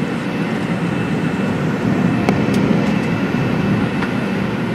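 Steady cabin noise of a Fokker 70 climbing out, the rumble of its two rear-mounted Rolls-Royce Tay turbofans mixed with rushing air, heard from a window seat. A couple of faint clicks come about halfway through.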